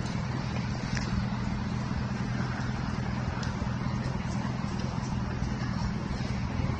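Street traffic noise with a steady low hum running throughout.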